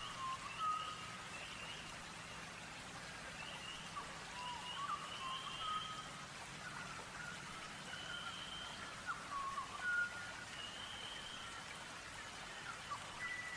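Songbirds chirping and whistling in short, scattered calls over a steady soft hiss.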